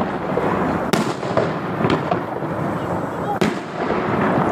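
Aerial fireworks shells bursting: sharp booms about a second in and again at about three and a half seconds, with a fainter one between, over a steady din of the display.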